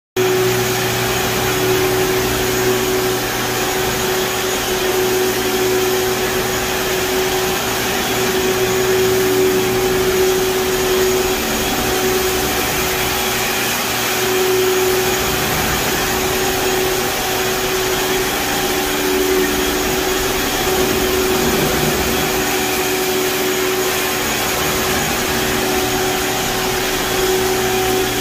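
Compact walk-behind floor scrubber running steadily as it scrubs old wax off a hardwood floor. Its motors hum with a steady whine over a wide rushing noise.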